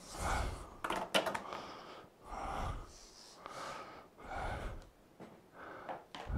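Corrugated shop vac hose being pulled out and stretched by hand: about half a dozen soft rustling swells, with a few light clicks about a second in.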